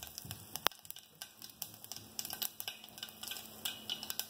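Mustard and cumin seeds crackling and popping in hot groundnut oil as a tempering, scattered sharp pops over a faint sizzle, with one louder pop shortly after the start.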